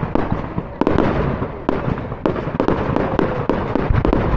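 Fireworks display going off: a rapid run of sharp bangs, two or three a second, over a continuous rumble.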